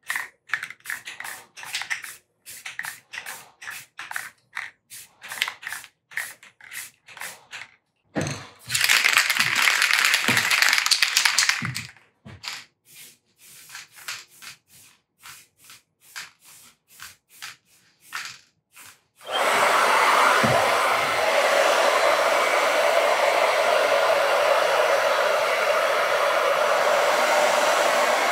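An aerosol spray-paint can shaken with its mixing ball rattling, then about three seconds of spray hissing, then more rattling. About 19 seconds in a hair dryer switches on and runs steadily, blowing on the freshly painted wire harness to dry it.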